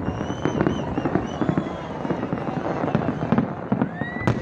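Fireworks going off in quick succession, a dense run of bangs and crackling pops, with a thin whistle rising in pitch near the end.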